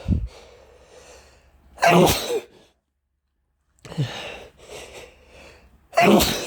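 A man sneezing twice, once about two seconds in and again near the end, with a sharp breath in and some breathy sounds before the second sneeze. The sneezes are set off by dust from long-packed belongings.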